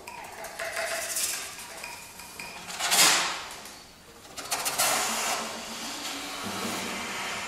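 Saxophone quartet playing extended techniques: breathy, unpitched air noise blown through the saxophones, with clicking and a few faint held notes. The loudest rush of air comes about three seconds in, and another swell follows about a second and a half later.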